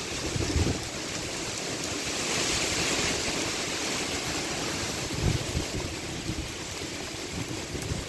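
Heavy hurricane rain and wind: a steady rushing downpour that swells a couple of seconds in, with gusts buffeting the microphone, the strongest about five seconds in.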